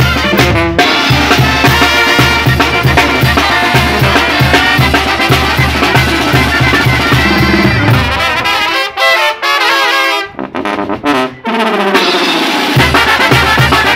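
Mexican brass banda playing a son: sousaphone, bass drum with a mounted cymbal, metal snare and timbal drums, clarinets, trumpets and trombone. About eight seconds in, the tuba and bass drum drop out and the band plays a run of short stop-breaks with brief silences between them. The full band comes back in shortly before the end.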